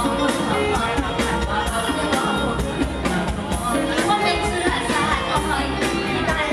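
Live mor lam band playing over a PA with a steady drum beat while a woman sings.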